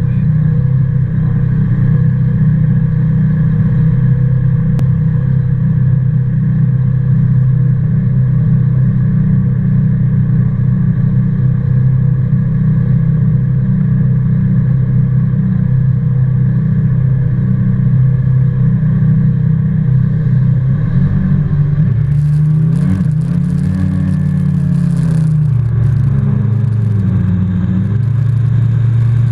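Laser LTV performance boat's engine running hard at speed, a steady loud drone. Between about two-thirds and nine-tenths of the way through, the engine note dips and rises several times, along with a burst of hiss.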